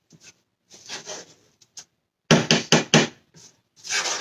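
Wooden spoon stirring a saucepan of thick grits, scraping the pot, then knocked against the pan four times in quick succession a little over two seconds in.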